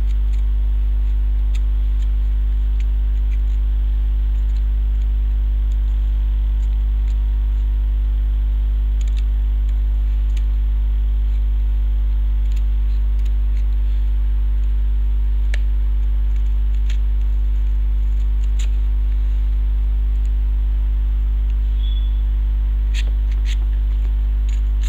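Loud steady electrical mains hum, a low drone with a stack of overtones. Faint scattered clicks of a cutter blade working through cardboard sound a dozen or so times over it.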